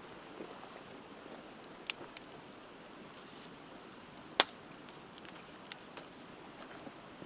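Wood campfire crackling with scattered sharp pops, the loudest about four and a half seconds in, over the steady rush of river water.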